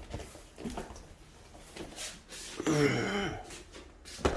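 Hand handling of a package of old photographs being opened: faint rustling with a few sharp clicks, the sharpest near the end. A short mumbled voice sound comes about three seconds in.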